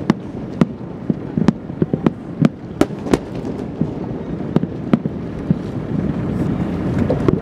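Aerial fireworks shells bursting in a run of sharp bangs, several a second, thinning out to a few scattered reports after about five seconds.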